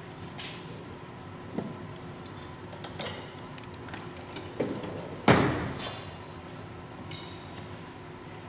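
Metal wrenches clinking and clanking as they are handled and picked out of a tool set: several light clinks, then one loud clank with a short ring a little past the middle.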